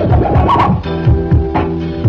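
Music with turntable scratching over a steady beat; about halfway through, it shifts to held chords over the beat.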